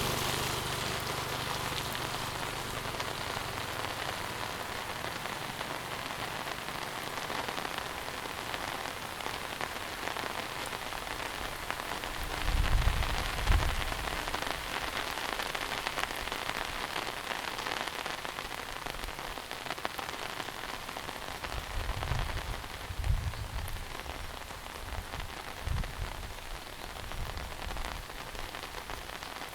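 Heavy monsoon rain falling steadily, a dense even hiss of rain on surfaces. A few low thuds or rumbles come through about halfway and again several times near the end.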